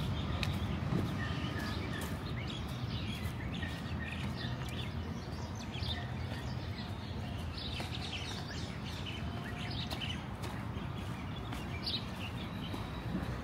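Street ambience: small birds chirping in many short calls over a steady low background rumble.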